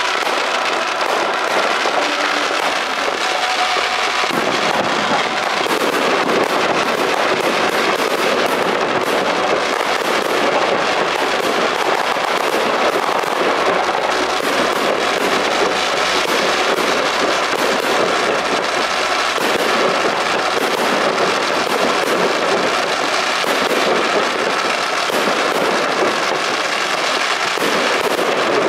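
Fireworks going off without pause: ground fountains and rising comets make a dense, continuous crackling and fizzing, with no single loud bang standing out.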